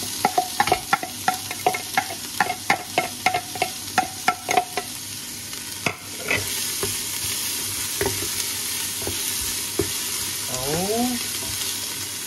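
Chopped onion, celery and garlic sizzling in hot oil in a large pot, as they start to sauté. For the first five seconds a quick run of sharp, ringing knocks, about four a second, sounds over the sizzle; after that only the steady sizzle remains.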